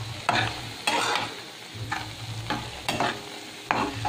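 Metal spatula stirring thick prawn gravy in a steel kadai: about six scraping strokes against the pan, over the gravy's steady simmering hiss.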